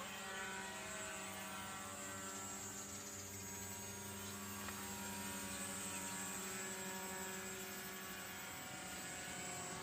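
Steady droning hum of the electric motors and propellers of radio-controlled paraglider models in flight, holding an even pitch.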